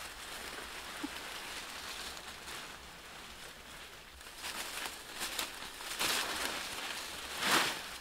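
Leafy branches and undergrowth rustling as they are handled and pushed through, with several brief swishes in the second half and the loudest near the end.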